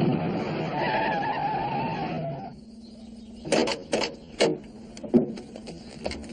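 Delivery van's engine running as it pulls up, with a brief tyre or brake squeal; the engine sound stops abruptly about two and a half seconds in. About a second later come a run of sharp knocks and thuds as men jump out of the van.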